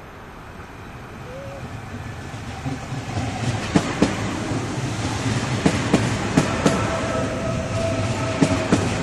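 ICE-T tilting electric multiple unit arriving at a station and passing close by. Its rumble grows louder, and from about four seconds in its wheels click in pairs over the rail joints; a steady whine joins about halfway through.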